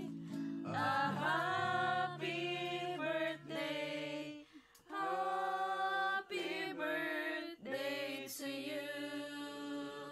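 A small group singing a birthday serenade song together over a quiet guitar backing track, in long held phrases with a short breath pause about four and a half seconds in.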